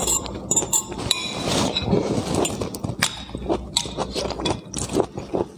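Close-up wet chewing and mouth sounds, with irregular crackles and clicks. A metal fork clinks against a plate about a second in.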